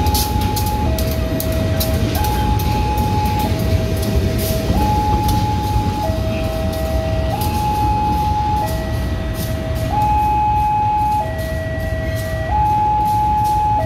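A two-tone electronic warning alarm alternates between a higher and a lower note, each held about 1.3 seconds. Under it runs the low, steady rumble of CC201 diesel-electric locomotives.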